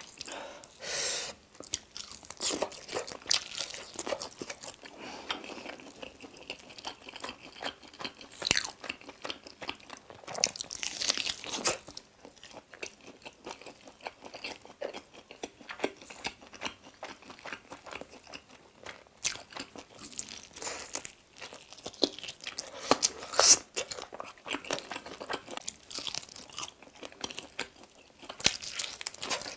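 Close-miked eating of sauce-coated mala volcano chicken wings: irregular crunchy bites and chewing throughout, with a few louder crisp bursts.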